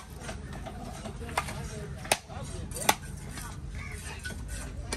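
Heavy cleaver striking a conch shell on a wooden chopping block, chipping the shell open: three sharp blows, about a second and a half, two seconds and three seconds in, the last two the loudest, over steady background noise.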